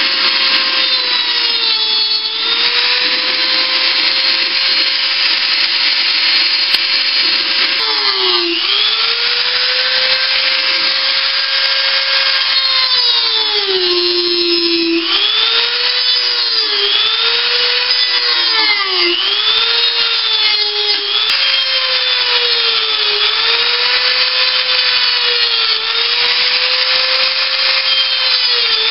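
Dremel rotary tool running at high speed while it sands the filler-coated edge of a helmet's neck opening, with a steady high whine and gritty rubbing. The pitch dips each time the bit is pressed into the edge and recovers as it eases off, over and over in the second half.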